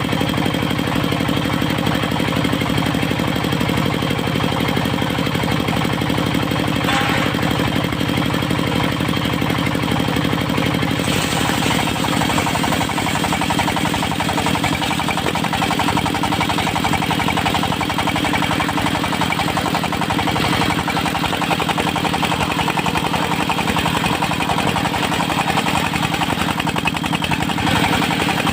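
Diesel engine driving a serkel circular sawmill, running steadily with a knocking beat. About eleven seconds in, a brighter, higher hiss joins the engine and stays.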